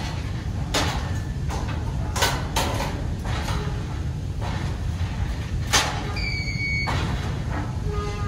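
Metal door of a cylindrical personnel lift capsule being handled and shut, a series of sharp clanks and knocks over a steady low rumble. A short steady beep sounds about six seconds in, and a pitched signal tone begins near the end.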